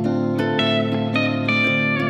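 Background music: a guitar-led instrumental passage of held, plucked notes that change about every half second.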